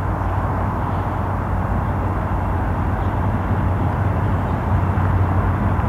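BNSF diesel locomotives hauling a loaded coal train, their engines running with a steady low drone that slowly grows louder as the train approaches.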